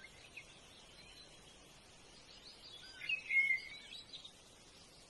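Birds chirping, with a louder burst of song about three seconds in, over a faint steady hiss.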